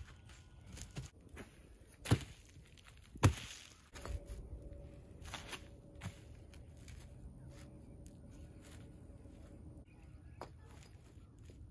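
Garden bricks being set down on weed-barrier fabric: two sharp knocks a little over a second apart, about two and three seconds in, as brick meets brick, then lighter taps and scrapes as they are nudged into line.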